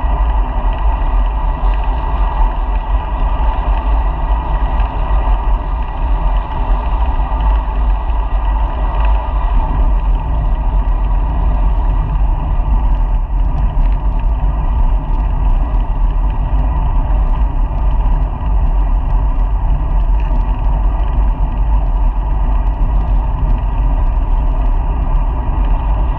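Steady wind rumble over a bike-mounted GoPro's microphone while cycling, mixed with road noise, with no breaks or changes.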